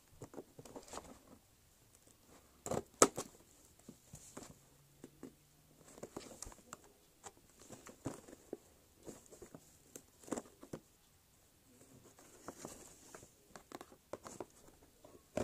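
A kitchen knife scraping and prying at a cardboard toy box, with the box being handled: scattered scratches, taps and crinkles, and one sharp click about three seconds in.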